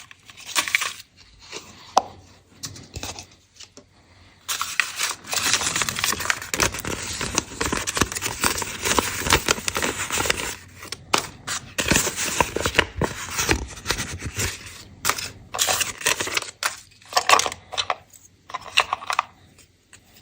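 Candy wrapping being torn open and crinkled up close, with scattered taps and clicks. It is light at first, then dense, continuous crinkling from about four seconds in, thinning to short bursts near the end.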